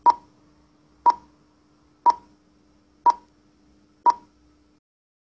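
Film-leader countdown beeps: five short, sharp electronic beeps, one each second, over a faint steady low hum that stops shortly after the last beep.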